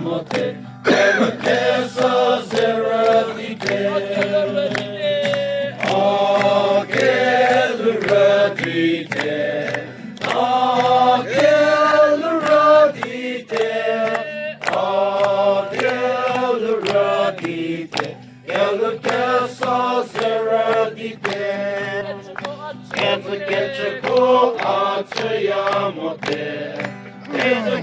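A group of people singing a song together, with held notes in steady phrases.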